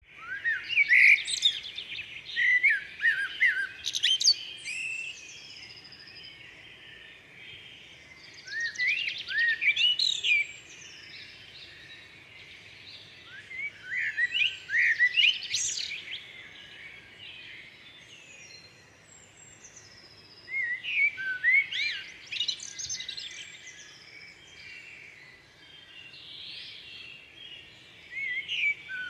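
Songbirds singing: five bursts of quick chirping, whistled phrases, a few seconds apart, over a faint steady outdoor hiss.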